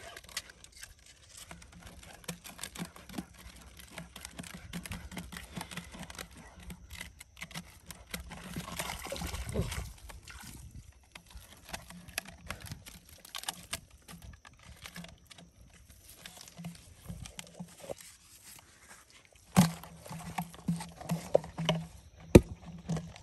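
Plastic bottle fish traps wound with line being handled and set down on a muddy bank: scattered clicks, crinkles and knocks of the plastic, with the loudest knocks near the end. A short rushing noise comes about nine seconds in, and a low steady hum sits underneath at times.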